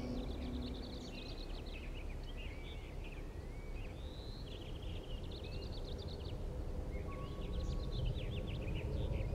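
Outdoor ambience: several songbirds chirping and trilling in quick, overlapping phrases over a steady low background rumble.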